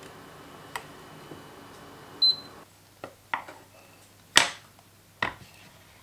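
A metal spoon knocking against a stainless steel saucepan: one ringing clink a little over two seconds in, then a few short, sharper knocks, the loudest about four and a half seconds in.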